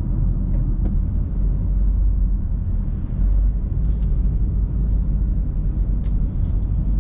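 Car driving along a city road, a steady low rumble of engine and tyre noise heard from inside the cabin, with a couple of faint clicks.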